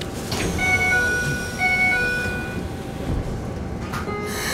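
Electronic two-tone door chime inside a Keikyu New 1000 series train, sounding its pair of notes twice as the train stops at the platform and the doors open. It starts just after a short sharp sound. A hiss comes up near the end.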